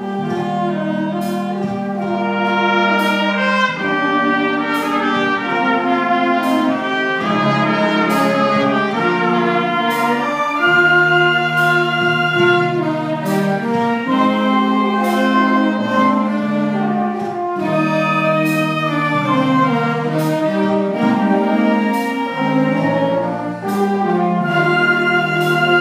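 School concert band of saxophones, flutes and other wind instruments playing a held, stepwise melody over a steady beat.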